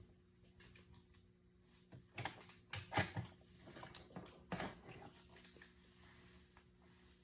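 Homemade ceiling fan coasting down with its power off, heard as a faint steady hum. A cluster of sharp clicks and knocks comes about two to five seconds in, loudest about three seconds in.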